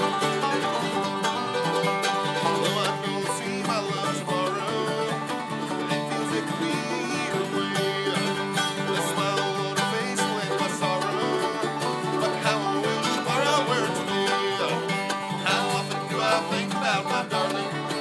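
Bluegrass trio playing acoustic: a banjo rolling, a flat-top acoustic guitar strumming and a mandolin, with a man's voice singing over them.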